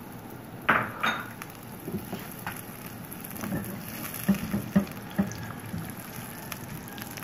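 Sliced onions sizzling in hot mustard oil in a wok, stirred with a silicone spoon. A few knocks and scrapes of the spoon on the pan stand out, the loudest about a second in.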